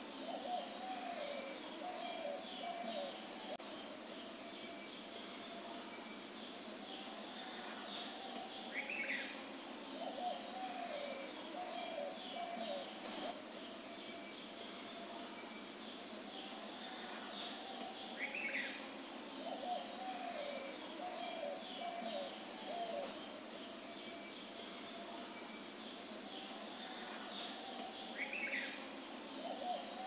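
Birdsong ambience: a short high call repeats about every two seconds. Low cooing phrases come every eight seconds or so, over a steady high hiss.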